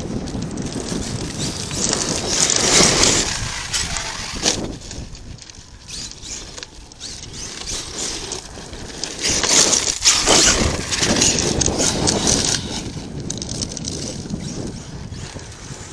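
ARRMA Kraton 8S brushless electric RC truck driving over rough dirt and rocks: a noisy rush of motor, drivetrain and tyres that grows louder twice, about 2 s in and again about 9 s in, as the truck passes.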